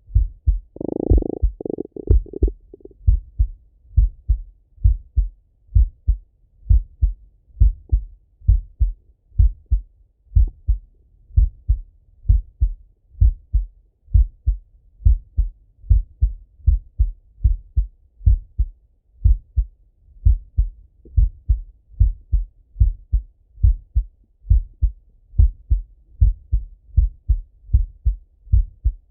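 Male heartbeat heard through a Littmann stethoscope: a steady, even lub-dub rhythm of low thumps. A brief rustle comes about a second in.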